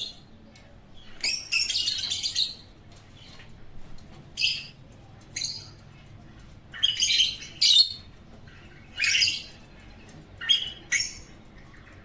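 Pet cockatiel and African lovebirds calling: a longer harsh call about a second in, then a string of short, high-pitched chirps every second or so.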